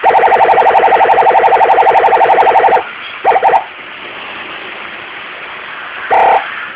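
Electronic police siren module sounding a rapidly pulsing tone for nearly three seconds. Short blasts follow, a pair about three seconds in and another near the end.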